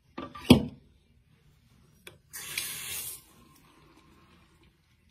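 A sharp knock about half a second in, then a bathroom tap turned on briefly: a short hiss of running water lasting under a second.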